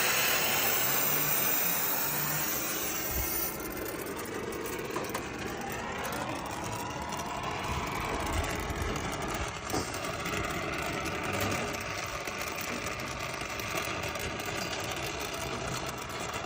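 An engine or motor running steadily, with a few light knocks.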